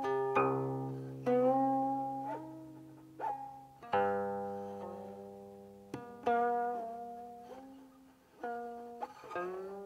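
Guqin played solo: single plucked notes and double stops ringing with long decays, the stopping hand sliding along the string so that several notes glide up or down in pitch after they are plucked.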